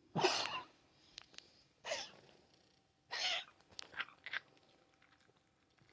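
A pet cat coughing: three short, noisy hacks about a second and a half apart, followed by a few smaller catches.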